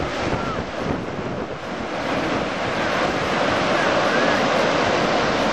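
Rough surf breaking close by, a steady wash of waves, with wind buffeting the microphone.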